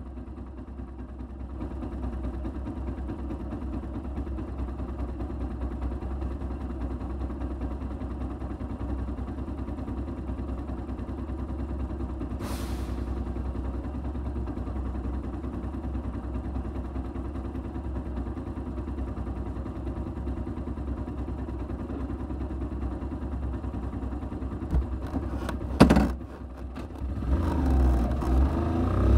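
Kymco Quannon 125 motorcycle's single-cylinder engine idling steadily. A brief hiss comes near the middle, a few clicks and one sharp knock come a few seconds before the end, and then the engine revs up as the bike pulls away.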